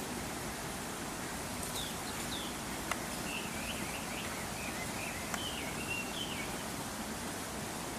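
A small bird twittering in a quick wavering high warble from a couple of seconds in until about six and a half seconds, over a steady outdoor hiss, with two faint clicks.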